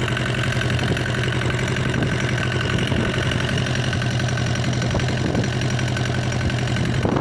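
Small wooden fishing boat's engine running steadily under way, a low hum with a fast, even beat.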